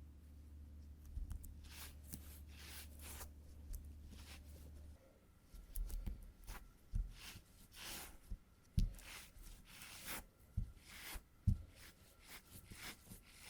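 Adhesive tape being pressed onto and peeled off fabric trousers to pull out embedded cat hair: short scattered peeling and rustling strokes that come faster, with soft thumps, after about five seconds. A low steady hum stops about five seconds in.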